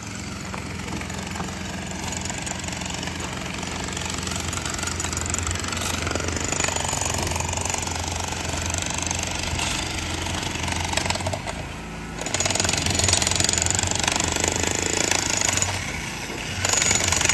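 A power breaker hammer running with a dense, rapid hammering rattle over a steady motor hum, stopping briefly twice, about twelve seconds in and again near the end.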